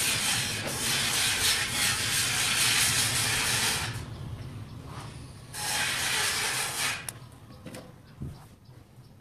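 Soldering iron sizzling on the flux of wire joints in a small relay circuit: a spell of crackly hiss of about four seconds that stops sharply, then a shorter one past the middle.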